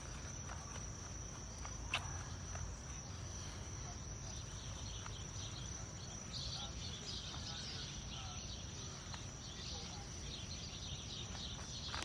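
Insects singing: a steady high-pitched trill, joined about halfway through by a fast pulsing buzz. Underneath runs a low rumble, with a single sharp click about two seconds in.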